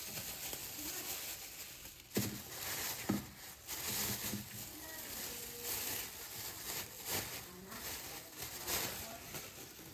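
Thin plastic grocery bags rustling and crinkling as they are handled and opened, with two sharper knocks about two and three seconds in.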